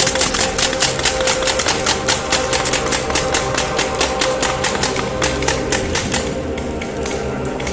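A fast, even run of sharp clicks, about five a second, fading out about six seconds in, over music with steady held tones.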